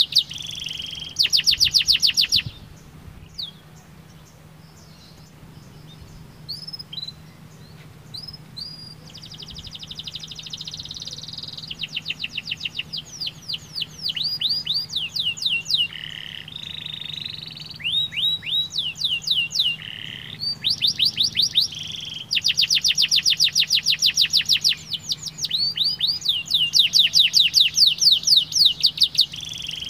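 Domestic canary singing: fast trills and rolled phrases one after another, with a quieter stretch of scattered single notes a few seconds in before the full song resumes.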